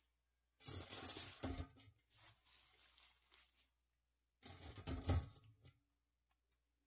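Fresh purslane sprigs rustling and crinkling as hands push and pack them into a pot, in two louder handfuls, about half a second in and again around four and a half seconds in, with softer rustling between.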